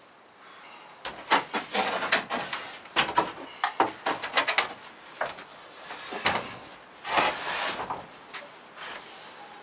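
Wooden pallet boards being handled: irregular knocks, clatters and scraping, loudest in a run of sharp knocks through the middle and a longer scrape near the end.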